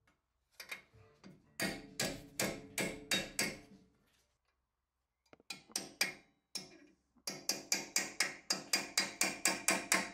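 Club hammer striking a steel punch to drive a seized steel pin out of an aluminium Brembo brake caliper: metallic ringing blows. First a few light taps and a run of about six heavy blows, then after a pause a fast run of about a dozen, some four a second.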